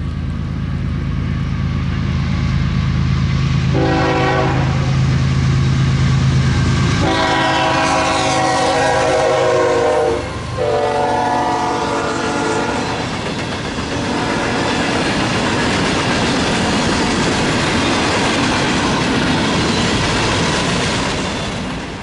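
Norfolk Southern freight train passing close, led by GE diesel locomotives (ES44AC, C44-9W, ES44DC). The diesels drone, and the air horn gives a short blast about four seconds in, then two long blasts that fall in pitch as the locomotives go by. After that come the rumble and clatter of loaded gondola cars rolling over the rails, fading near the end.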